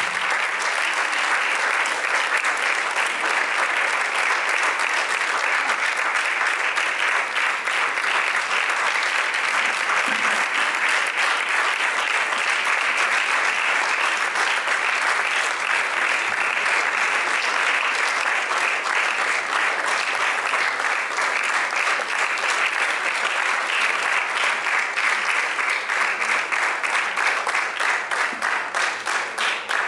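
Audience applauding: a large crowd's dense, sustained clapping that loosens into more separate claps near the end.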